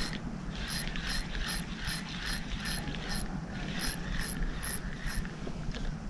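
Spinning reel being cranked to retrieve a jig: its gears whir with a regular tick about two and a half times a second. The winding pauses briefly a little after three seconds in and stops shortly after five seconds.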